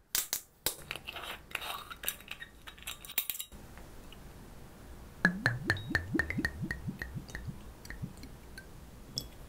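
Metal screw cap twisted off a green glass soju bottle, a rapid run of sharp clicks as the seal ring breaks. About five seconds in, soju is poured from the bottle into a glass shot glass, glugging from the neck in quick strokes for nearly three seconds.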